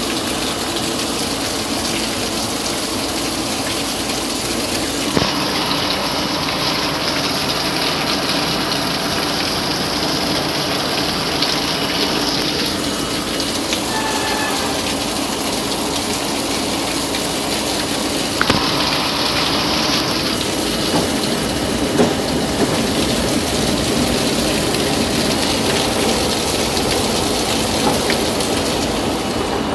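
Heavy rain falling on and around a stopped R32 subway car, a steady rushing downpour with a few faint clicks.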